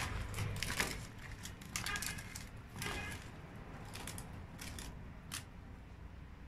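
Hand-tossed cubes of watermelon rind and green pepper clicking and rustling against each other in a plastic bowl while they are mixed with garlic and salt, in scattered short clicks that thin out towards the end.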